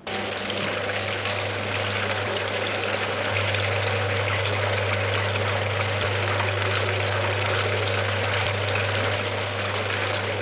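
Steady rushing, water-like noise over a low steady hum, starting abruptly and cutting off abruptly.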